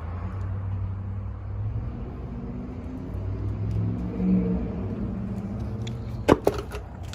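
A motor vehicle's engine runs with a low, steady rumble, and its pitch shifts a little in the middle seconds. A sharp click comes about six seconds in.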